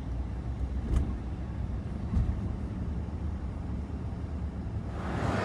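A car driving, heard from inside the cabin: a steady low rumble of engine and tyres, with two light bumps about one and two seconds in. Near the end a louder, even hiss comes in.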